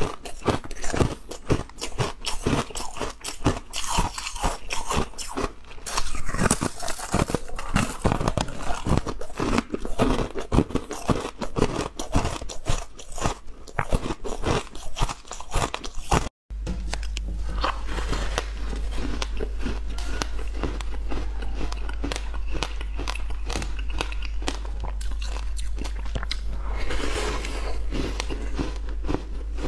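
Ice being bitten and crunched: pieces snapped off a slab of frozen blue ice cubes in many quick, sharp cracks. About halfway through the sound cuts out for a moment, then a denser, finer crackle of chewing runs on over a steady low hum.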